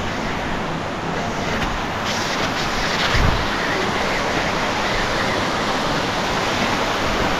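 Steady rush of a waterfall pouring down a rock gorge, with a brief low thump about three seconds in.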